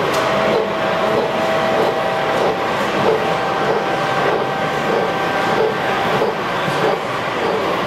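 Gauge 1 model of a DB class 82 steam tank locomotive running slowly past, with a soft, regular chuffing about one and a half beats a second and faint wheel-on-rail clicks, over a thin steady whine.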